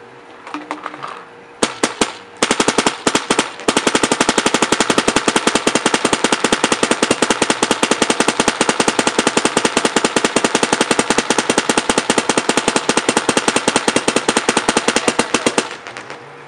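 Dye NT paintball marker firing on compressed air. A few separate shots come first, then a long, even rapid-fire string of many shots a second that lasts about twelve seconds and stops abruptly near the end.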